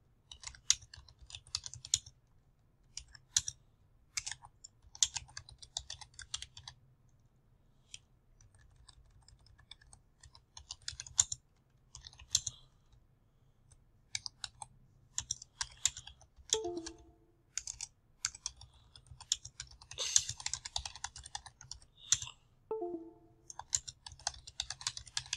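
Typing on a computer keyboard: quick bursts of keystrokes with short pauses between them, and a longer lull about a third of the way in.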